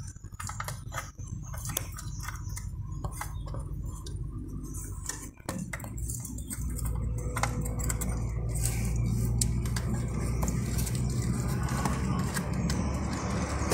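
Irregular metallic clicks and clinks of a hand tool on engine parts as bolts are worked loose. A steady low rumble joins in from about six seconds in.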